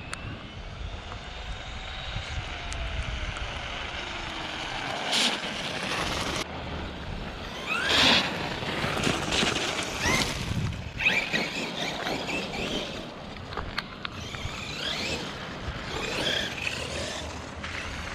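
Traxxas E-Revo 2.0 RC truck's electric motor whining, rising and falling in pitch again and again as the truck speeds up and slows, over a steady rushing noise. The loudest surge comes about eight seconds in.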